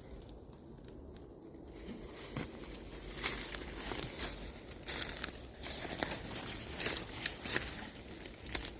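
Irregular crunching and crackling of dry leaves and brush underfoot, from someone walking through the woods. It is quiet for the first couple of seconds, then the crackles come thick and uneven.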